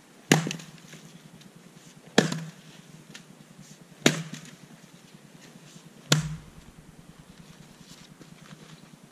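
Axe splitting firewood rounds on a chopping block: four sharp chopping strikes about two seconds apart, the fourth with a deeper thud.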